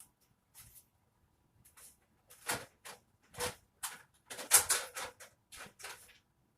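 Things being moved and knocked about in a closet: a run of irregular clatters and scrapes starting about two seconds in.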